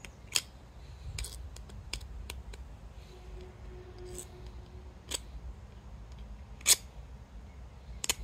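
A metal file rasping on the cut end of a copper pipe in a few separate short strokes, the loudest near the end.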